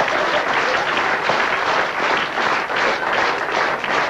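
Audience applauding: many people clapping together in a dense, steady wash.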